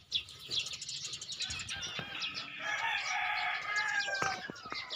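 A rooster crows once, starting about two and a half seconds in and lasting about a second and a half. Small birds chirp around it.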